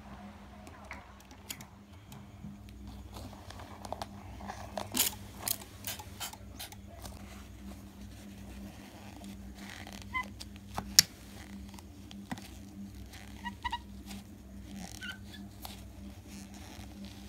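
A tissue rubbing over a small glass mirror as it is wiped clean, with short squeaks and scattered taps and clicks as the mirror is handled; the loudest tap comes about halfway through. A steady low hum sits underneath.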